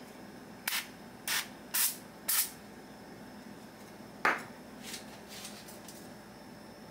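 Cooking oil sprayed onto raw beef in short spritzes: four quick hisses about half a second apart, then another a couple of seconds later.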